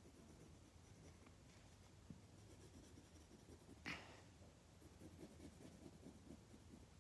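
Faint scratching of a pencil drawing on lined notebook paper in short, irregular strokes, with one brief louder scrape about four seconds in.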